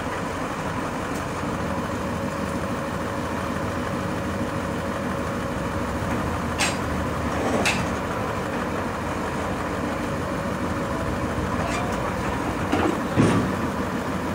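Crane truck's diesel engine running steadily to drive the crane's hydraulics as the boom lifts a heavy scrap part, with a few short sharp noises. The loudest of these comes near the end.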